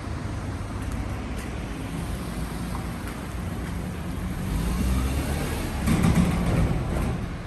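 Road traffic rumbling steadily, swelling as a vehicle passes close about six seconds in.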